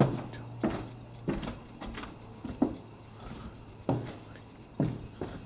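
Footsteps walking at a steady pace, about one knocking step every two-thirds of a second, with a short pause near the middle.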